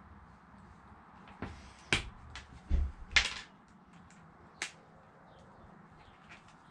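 Handheld wire stripper/crimper cutting and stripping small-gauge red and black power leads: a few sharp clicks and snips, a dull knock, and a short loud rasp in the middle, then one last click.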